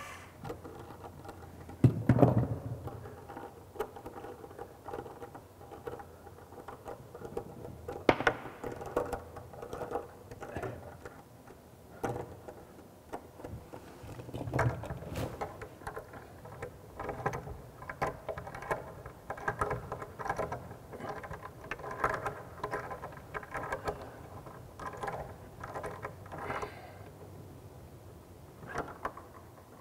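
Hand work on the pipework of a pedestal wash basin: irregular clicks, knocks and scraping of tools and fittings, with a louder knock about two seconds in and another about eight seconds in, and short squeaks in the second half.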